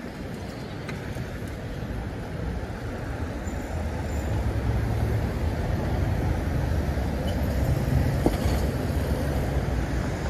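Urban road traffic: a steady wash of road noise, with a vehicle's low engine rumble building from about four seconds in.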